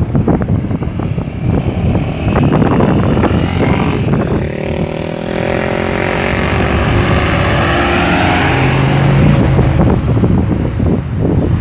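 A motor vehicle's engine passing close by, its engine note slowly shifting in pitch for several seconds in the middle, over wind buffeting the microphone.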